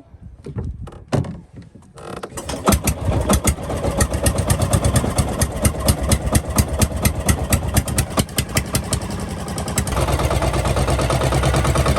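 Banca boat's small engine starting about two seconds in and running with a fast, even putter that grows quicker and steadier near the end.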